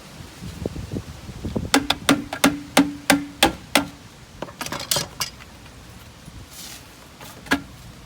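A quick run of about eight sharp knocks, roughly three a second, each with a short ring, followed by a few lighter scattered knocks and a single knock near the end.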